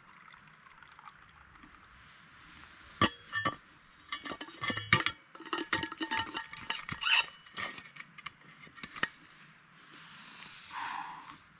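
Metal tea things being handled: a string of sharp clinks and knocks, many with a short metallic ring, such as a thermos and metal mug knocking together while he gets tea ready. Near the end comes a short rushing hiss.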